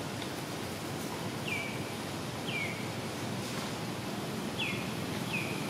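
Steady outdoor background noise with four short, high chirping animal calls, each falling in pitch. The calls come about a second and a half in, again a second later, then twice near the end.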